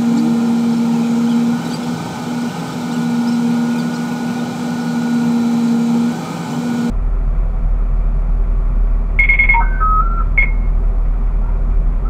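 Steady vehicle hum with a few held tones while the tram stands waiting in traffic. It cuts off abruptly about seven seconds in, and a lower hum follows, with a few short electronic beeps stepping between pitches.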